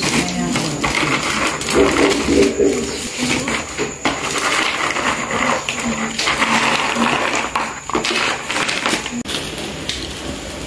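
Thin plastic bags crinkling while crisp fried kuih siput snacks are scooped and rattle into them, a busy crackling rustle with small clicks.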